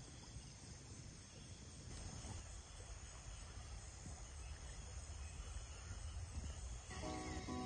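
Night-time insect chorus of crickets: a steady high-pitched buzzing over a low, even rumble. Near the end, strummed guitar music comes in.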